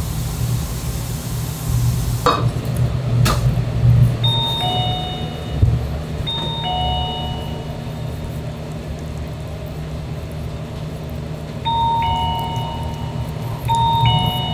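An electronic two-tone ding-dong chime, a high note followed by a lower one, sounds four times over a steady low hum. About two seconds in, a hiss cuts off, and a short knock follows.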